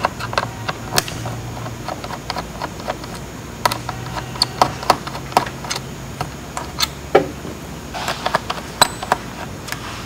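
Irregular small clicks and taps of a screwdriver and fingers working small screws out of a bracket inside a Panasonic Toughbook CF-30 laptop, over a faint steady hum.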